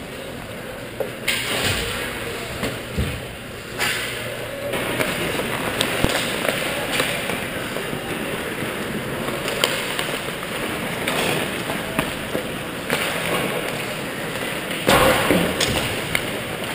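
Ice hockey skates scraping and gliding on the rink, with scattered sharp clacks of sticks and pucks and a louder thud near the end.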